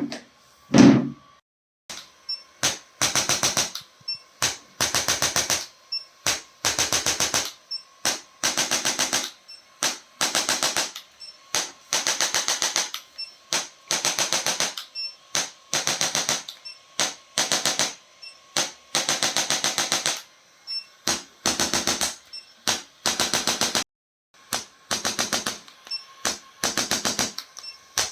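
Electric chiropractic adjusting instrument firing short bursts of rapid mechanical tapping, each burst lasting about half a second and repeating a little under once a second, with a brief pause near the end.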